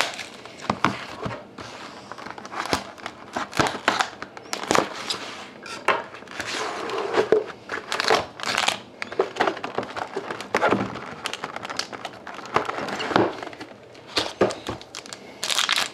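Foil wrapping of a hockey card pack crinkling and crackling in irregular bursts as hands handle it in its cardboard box.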